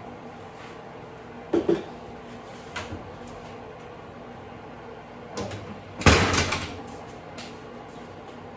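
Oven door and baking dish knocking and clunking: a double clunk about a second and a half in, a few lighter taps, then the loudest bang about six seconds in with a brief rattle after it. A steady low hum runs underneath.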